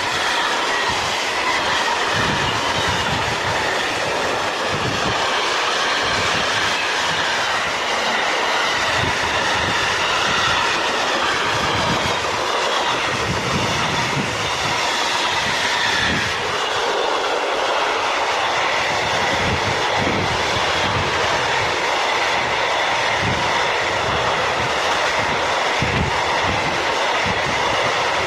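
Freight wagons of a works train rolling past close by: a steady rolling rumble with irregular clacking of wheels over rail joints.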